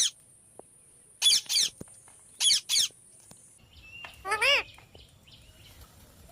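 Ring-necked parakeets calling: two quick pairs of short, shrill calls in the first three seconds, then a longer, lower squawk about four seconds in.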